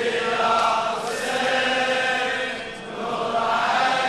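Male chanting of a Shia latmiya, a mourning chant for Imam Hussein, sung without words that can be made out as long melodic held notes. The voices dip briefly about three seconds in.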